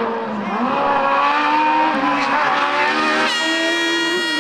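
Racing sports prototype's engine accelerating hard up a hill-climb course, the revs climbing, dropping with an upshift about two seconds in, then climbing again. Near the end a piercing high-pitched tone cuts in abruptly over it.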